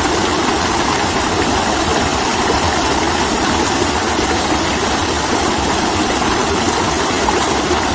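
Shallow stream rushing over rocks in a small cascade: a steady, even rush of water.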